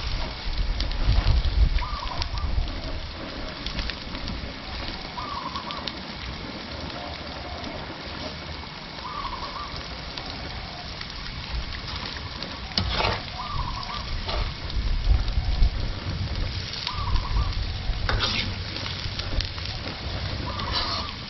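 Sliced shallots deep-frying in hot oil: a steady crackling sizzle, with a few louder knocks and scrapes as they are stirred.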